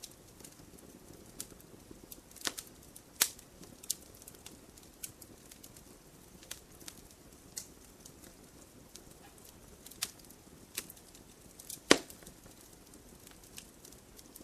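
Campfire crackling: irregular sharp pops and snaps from burning wood over a soft low hiss, with one loud pop near the end.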